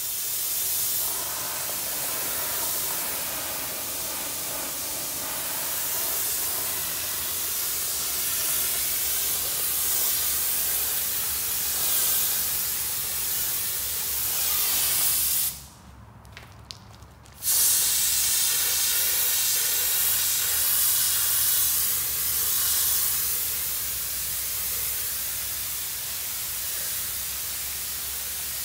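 Air-fed cup spray gun hissing steadily as it sprays red metallic gelcoat mixed with glitter flake. The spray stops for about two seconds midway, then starts again.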